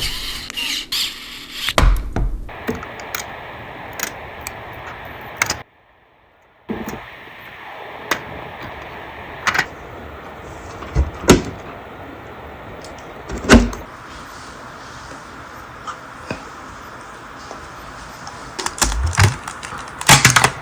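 Scattered sharp clicks and knocks of computer hardware being handled and fitted during a PC build, over a steady background hiss. A cluster of quick clicks comes near the end, and there is a brief silent gap about six seconds in.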